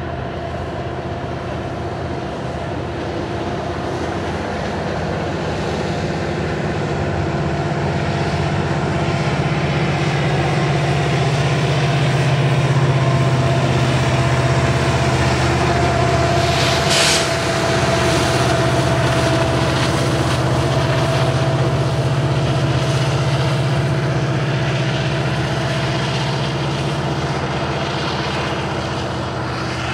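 Montana Rail Link SD70ACe diesel-electric locomotives running under power with a freight train, a steady low engine drone over rumble. It grows louder to a peak about halfway, then eases off. A brief high hiss comes about two-thirds of the way in.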